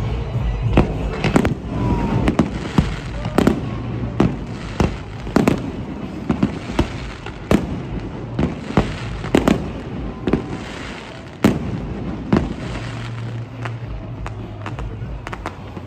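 Aerial fireworks shells bursting in quick, irregular succession, sharp bangs one after another. The bangs thin out about twelve seconds in.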